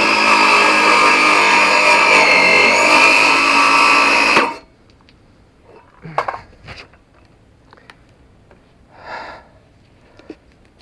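Circular saw running at full speed, cutting through a plastic sheet: a loud, steady high whine that dips slightly in pitch about two seconds in as the blade takes the cut, then stops abruptly at about four and a half seconds. A few light knocks and taps follow.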